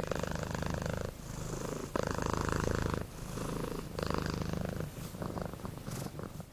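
A domestic cat purring in a steady rhythm, each in-and-out breath lasting about a second, fading away near the end.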